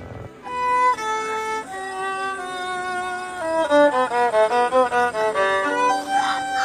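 Solo violin playing a melody of bowed notes, starting about half a second in. The first notes are long and held, and the notes move more quickly through the middle.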